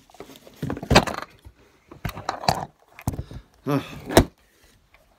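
Handling noise from the recording camera being grabbed and moved: four bursts of knocks and rattles about a second apart. A brief voice-like sound comes with the last burst, about four seconds in.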